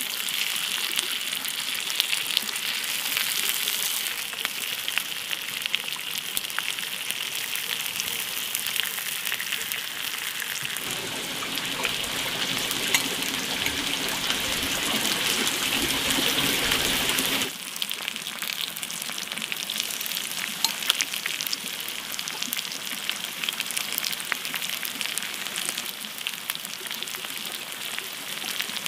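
Mussels in their shells sizzling and crackling on a wire grill rack, with scallion oil spooned over them. A steady hiss is dotted with small pops. From about the middle a lower rushing noise joins in, then cuts off suddenly.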